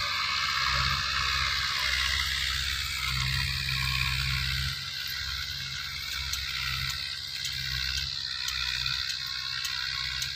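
Massey Ferguson 185 tractor's four-cylinder diesel engine running steadily under load while its rotary tiller works the soil, a distant drone that drops a little about halfway through, with faint high ticking in the second half.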